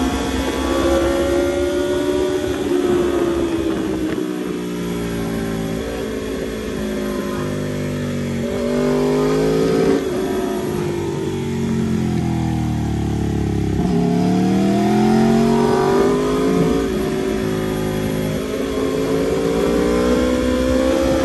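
Aprilia RSV4 RR's V4 engine heard from the rider's seat at speed, its pitch rising and falling as the throttle is worked through the bends, over wind noise. The pitch drops for several seconds from about ten seconds in as the bike slows, then climbs again.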